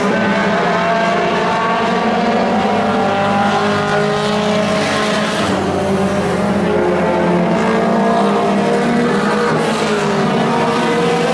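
Several Pro 4 race trucks running together on a paved oval, their engines overlapping and rising and falling in pitch as they accelerate and pass.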